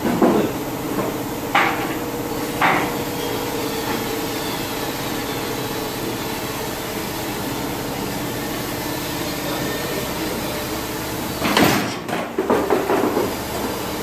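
A few sharp knocks, two in the first three seconds and a cluster of louder ones near the end, over a steady machine hum in an auto repair shop.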